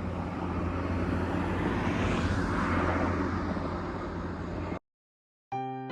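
Steady low rumble with a hum, swelling a little in the middle, that cuts off abruptly near the end. After a moment of silence, chime-like music notes begin.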